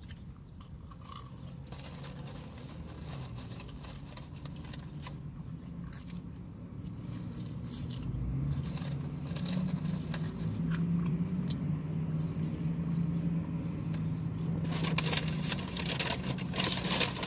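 Car engine running, heard from inside the cabin: a steady low hum that grows louder about halfway through. Scattered clicks and rustling come near the end.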